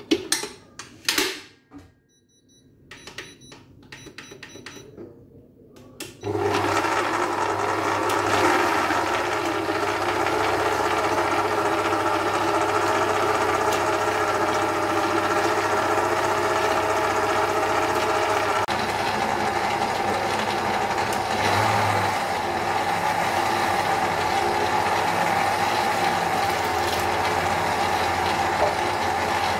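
A few clicks and knocks, then about six seconds in an electric stand mixer's motor starts and runs steadily as its wire balloon whisk beats eggs and sugar in a steel bowl.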